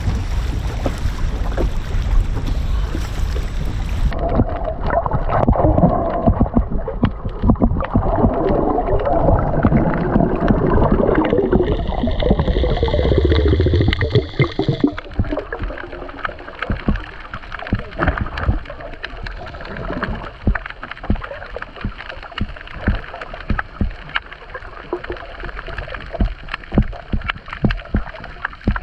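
Wind and water splashing at the surface for a few seconds, then the muffled sound of an underwater camera: loud bubbling and gurgling while a diver digs in the silty seabed. After about fifteen seconds it gives way to a steady crackle of small clicks in the water.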